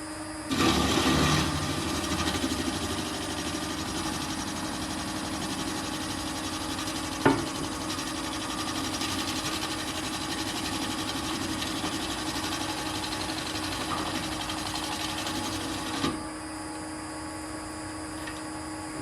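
Nova Viking drill press running, with an annular cutter boring a hole through metal. The cutting noise starts about half a second in, is loudest as the cutter first bites, and has a sharp click about seven seconds in. It stops abruptly about three seconds before the end, leaving the motor humming on its own.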